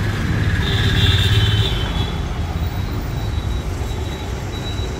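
Steady low background rumble, with a thin high tone for about a second near the start.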